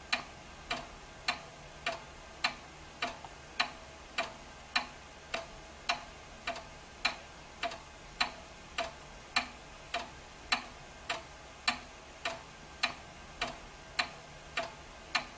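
Grandfather clock ticking steadily, its escapement giving a sharp tick just under twice a second as the pendulum swings.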